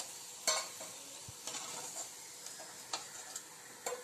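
Gulab jamun dough balls frying in hot oil, a steady faint sizzle. A few sharp clicks come through it, about half a second in and twice near the end.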